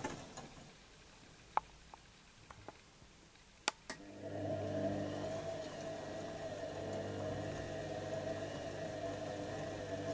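Panasonic (Vestel-built) front-loading washing machine in its wash phase, full load of linen: the drum motor's hum stops about half a second in, a few sharp clicks sound during the pause, and about four seconds in the motor starts again and hums steadily as the drum tumbles the load.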